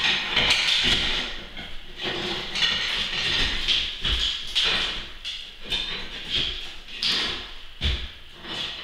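Irregular scraping and grinding strokes as glass blocks are worked loose from their mortar, with a couple of dull thumps.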